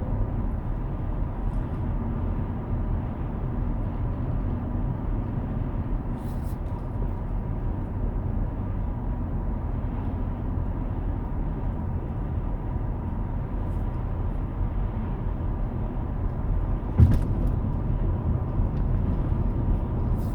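Steady low rumble of a car driving, engine and road noise, with a short knock about 17 seconds in.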